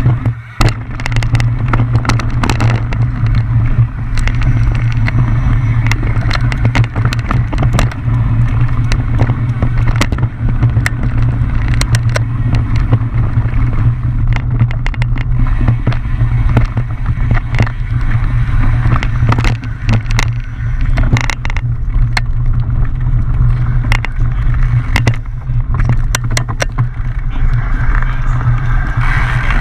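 Mountain bike riding a rough downhill trail. A steady, loud wind rumble on the camera's microphone is overlaid by constant rattles and knocks as the bike hits rocks and roots.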